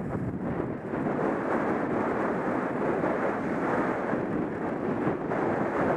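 Steady rush of wind buffeting a helmet-mounted camera's microphone while riding fast down a groomed ski slope.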